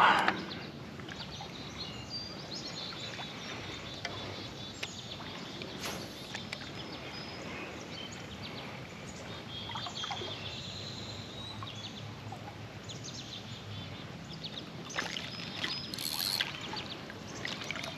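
Steady outdoor background noise with birds chirping now and then. A few light clicks and rustles come near the end.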